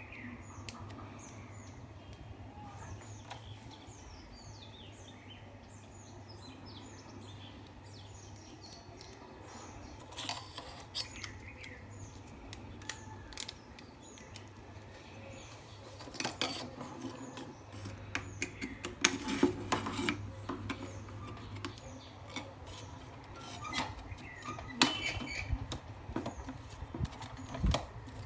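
Hands handling a plastic phone-holder bracket and aluminium tripod legs: scattered clicks, taps and rattles, busiest around the middle and with sharp knocks near the end. Small birds chirp in the background through the first half, over a low hum that comes and goes.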